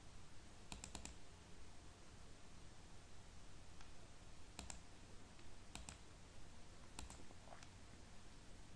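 Faint computer mouse clicks, mostly in quick pairs like double-clicks, repeating every second or so over a low steady background hiss.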